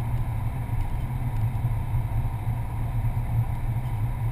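Car driving steadily on a paved road, heard from inside the cabin: a constant low rumble of engine and tyre noise.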